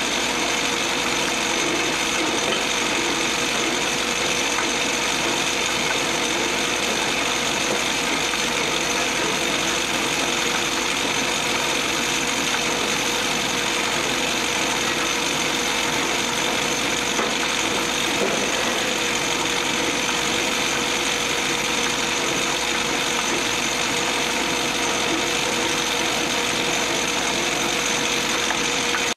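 Metal lathe running steadily while a twist drill in the tailstock chuck bores into a tough metal spacer blank spinning in the chuck; an even machining noise with a few steady whining tones.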